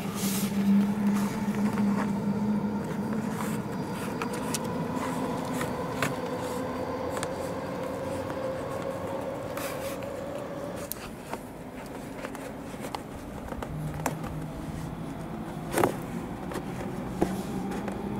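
Hands pressing a thin dash-cam power cable into the car's headliner and pillar trim, with small scattered clicks and scrapes and one sharper click about three-quarters of the way through, over a steady low hum.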